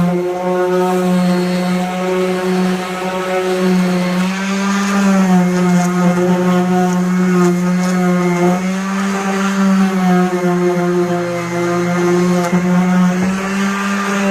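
Power sander running steadily while sanding a car's front bumper, its motor hum wavering slightly in pitch a few times as it is pressed on and eased off.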